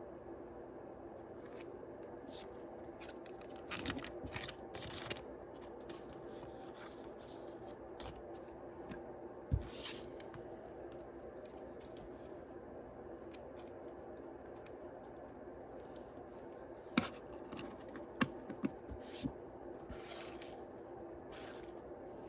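Trading-card booster packs being opened and the cards handled: scattered snips, crinkles and clicks in clusters a few seconds apart, over a steady low hum.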